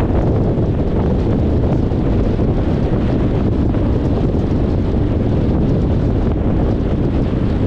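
Steady rumble of a car driving along a road: tyre and wind noise with wind buffeting the microphone, loud and unchanging, with no distinct events.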